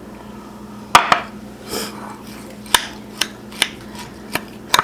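A utensil clinking against a mixing bowl a handful of times at uneven intervals as breadcrumb stuffing is stirred, with a soft swish between clinks.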